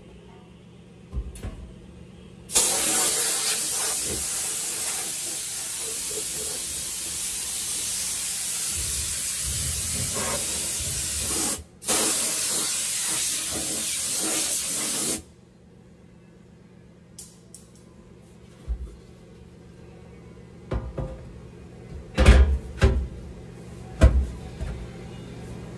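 A long, loud spray hiss that runs for about twelve seconds with one brief break, from a pressurized nozzle worked around the transmission tunnel panel. It is followed by several knocks and thumps as the stamped-steel high-hump transmission tunnel panel is set down over the floor opening.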